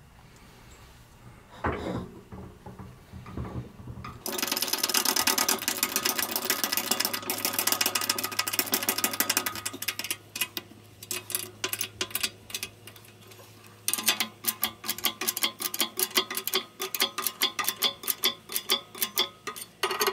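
Hydraulic shop press bringing its ram down onto an old bearing race to press a new bearing race into a tractor pinion housing. A few knocks as the parts are set in place are followed, about four seconds in, by dense rapid clicking over a steady low hum. The clicking thins out around ten seconds in and returns from about fourteen seconds as even, fast clicks, about four a second.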